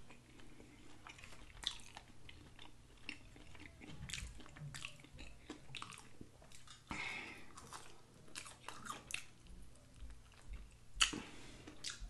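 Chewing and biting of fried chicken wings: a run of short wet mouth smacks and small crunches, with a sharper bite about a second before the end.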